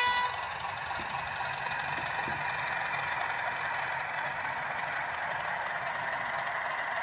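Hornby TTS sound decoder playing a Class 31 diesel engine sound through the OO gauge model's small speaker, running steadily as the locomotive moves along the track. The last moment of a horn blast ends right at the start.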